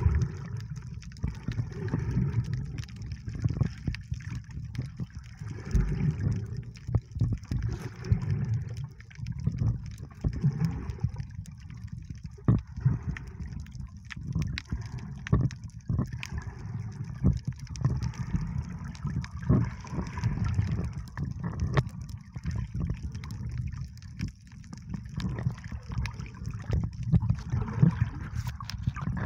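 Sea water heard from below the surface while snorkelling: a muffled low rumble of moving water with frequent clicks and crackles. A bubbling hiss swells and fades about every couple of seconds.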